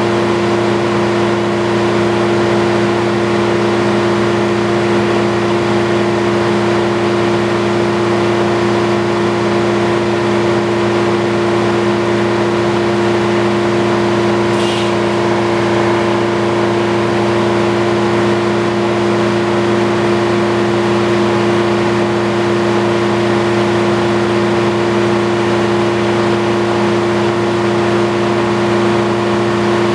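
Antique circular sawmill running at a steady speed: an even, unchanging mechanical hum with no rise or fall in pitch.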